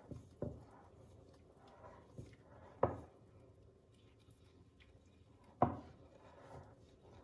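Three sharp knocks, roughly two and a half seconds apart, each with a short ringing tail, over faint room noise.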